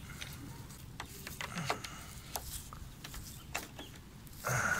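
Small clicks and scrapes of a screwdriver turning out the screw that holds a nylon roller wheel in the bottom of a timber sliding door, with a brief louder scrape near the end.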